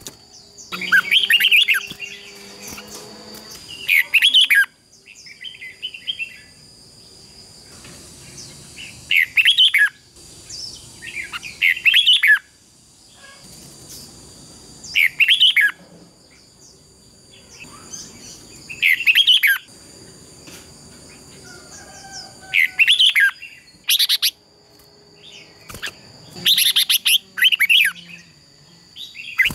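Red-whiskered bulbuls singing competition song: short, loud, sweeping warbled phrases repeated every three to four seconds. A faint steady high tone runs behind the song.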